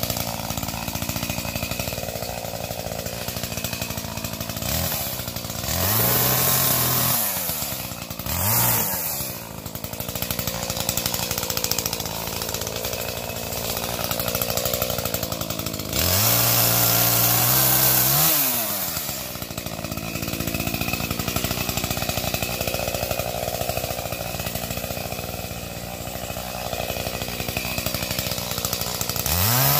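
Two-stroke chainsaw idling between cuts and revving up to speed several times as it cuts limbs off a felled tree, with the longest bursts about five seconds in and halfway through, and another starting at the very end.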